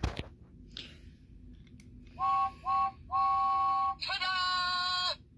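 A click, then the Talking James toy engine's electronic whistle through its small speaker: two short toots and a long one, all on the same two-note chord, then a second, buzzier long whistle ending about a second before the close.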